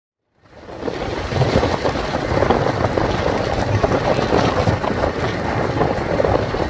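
Steady rushing noise of wind buffeting the microphone over the road noise of a moving car, fading in about half a second in.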